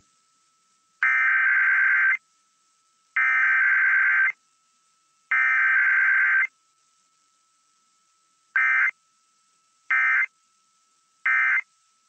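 Emergency Alert System data bursts of a Required Weekly Test on FM radio: three buzzy digital SAME header bursts of about a second each, a second apart, then three short end-of-message bursts. There is no attention tone or spoken message between them.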